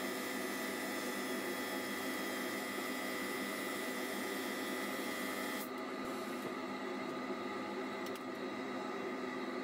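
Wood lathe running with a steady whine and hum while a cloth is held to the spinning walnut box lid. About halfway through, the higher part of the sound drops away, leaving a lower steady hum.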